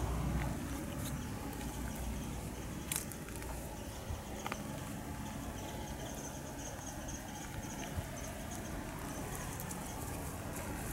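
Footsteps crunching through dry fallen leaves and twigs, with a few sharp snaps about three, four and a half and eight seconds in.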